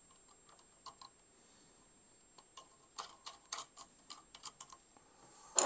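Small metal clicks and ticks of a nut and washers being fitted by hand onto a bus bar's M8 studs, a few scattered clicks at first, then a quicker run of clicks from about three seconds in.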